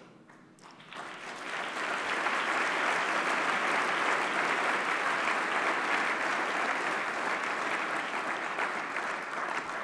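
Audience applauding, swelling up about a second in and then holding steady.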